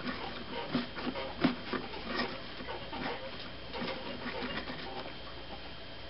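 Light, irregular scraping and clicking of a dental pick digging mineral scale out of the clogged water tube of a Mr. Coffee JWX31's heating element, with one sharper click about a second and a half in.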